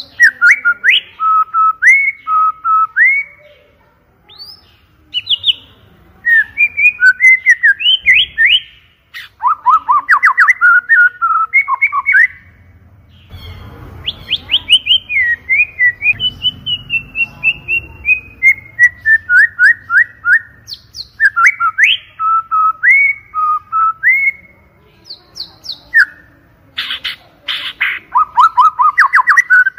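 White-rumped shama (murai batu) singing loudly: a long, varied run of clear whistled phrases, quick trills and chattering notes with brief pauses, including a descending series of notes about halfway through. This is a lure recording (pancingan) played to prompt other shamas to sing.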